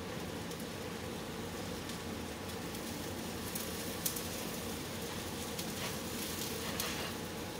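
Steady kitchen background hum, with a few faint clicks of utensils being handled now and then.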